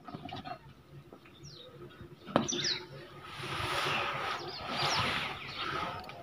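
Small birds chirping in short falling chirps, a few times, over a noisy rustle that swells in the middle and fades near the end.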